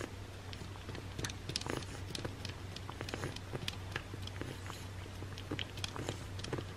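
Cat licking a churu puree treat off a plate: irregular quick wet licks and tongue clicks, several a second, over a low steady hum.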